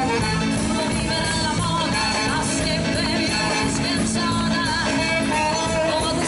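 Live band playing an upbeat Neapolitan dance song, with a singer's voice over the accompaniment and a steady beat.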